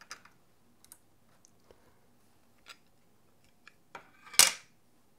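Light clicks and ticks from small metal and plastic parts of an NVMe M.2 SSD enclosure being handled and fitted, with a brief, louder clatter about four seconds in.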